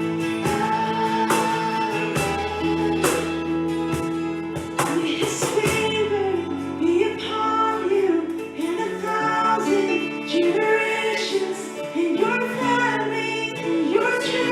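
Worship music: a female voice singing a melody over guitar and held keyboard-like chords.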